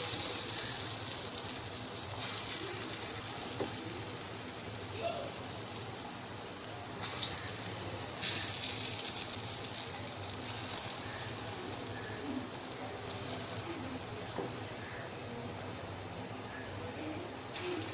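Hot mustard oil sizzling in an aluminium wok as small dollops of ground matar dal batter are dropped in by hand to fry as fritters. The hiss surges each time fresh batter goes in, loudest near the start and about eight seconds in, and settles to a steady sizzle between drops.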